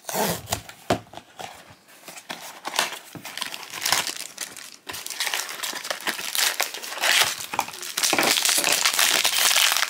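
A small cardboard blind box handled and opened, with scattered taps and rustles of card and a plastic sleeve. Then a foil bag crinkling in the hands, dense and continuous, louder in the second half.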